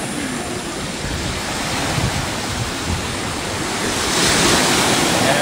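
Surf washing onto a sandy beach, a steady rush that swells louder about four seconds in, with wind buffeting the microphone.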